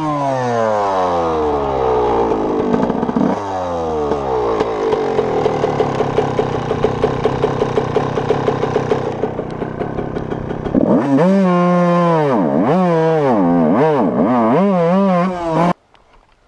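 Yamaha dirt bike's engine dropping in revs, running at low revs with a quick pulsing beat, then revved up and down several times while the bike is bogged in mud. Near the end it cuts out abruptly: the engine stalls as the bike goes down.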